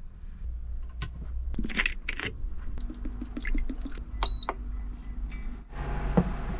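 Light clinks and clatter of small hard objects, one ringing briefly, over a steady low rumble.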